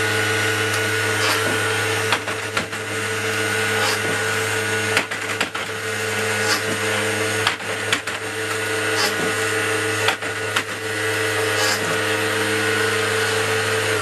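The electric dart rollers of a custom multi-shot Nerf blaster, driven by ESC-controlled motors, spinning with a steady whir. About every two and a half seconds, five times, the whir briefly drops as a servo shoves a cassette of ten foam darts through the rollers and fires them.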